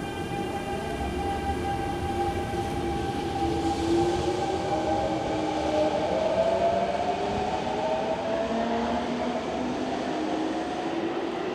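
Kintetsu 1252-series electric train pulling away from the platform, its traction motors whining in several tones that rise in pitch as it accelerates, over a steady running rumble.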